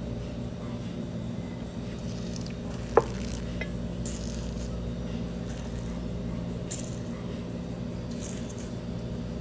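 Someone quietly sipping whiskey from a glass: soft slurping and mouth sounds over a steady room hum, with one sharp click of the glass about three seconds in.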